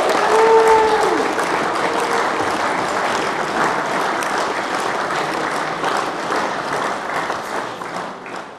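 Crowd applause, dense clapping with a few voices calling out in the first second, fading away near the end.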